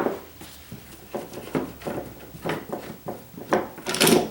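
A series of light, irregular knocks and clatter from wooden drawer-divider pieces being handled, with a louder, sharper clatter near the end.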